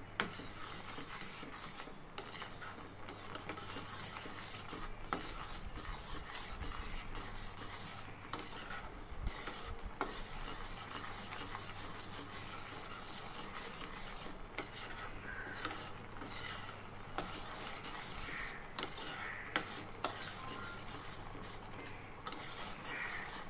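Steel spoon stirring and scraping boiling tamarind pulp in a steel kadai, with frequent light clinks against the pan and bubbling as the pulp cooks down toward a thick paste, over a low steady hum.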